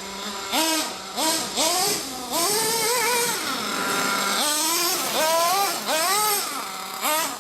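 RB K10 nitro engine of an Ofna Dominator RC car idling, then revved in a series of quick throttle blips, its pitch rising and falling each time, with one longer rev in the middle.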